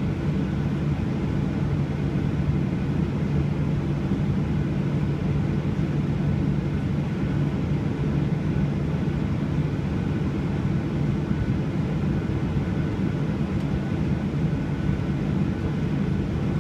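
Steady jet engine and air noise heard inside an airliner's cabin, a low even rumble with a faint steady whine above it.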